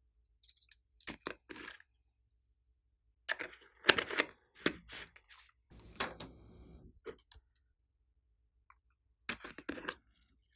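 Plastic bottles of foam beads being handled, opened and shaken out: short bursts of crackling plastic and rattling beads, the loudest about 4 seconds in, with quiet gaps between them.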